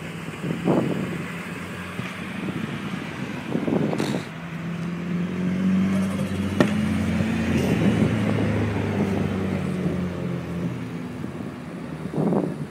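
Cars driving past, their engines revving in short bursts about a second in, around four seconds in and near the end, with a steady engine drone in between.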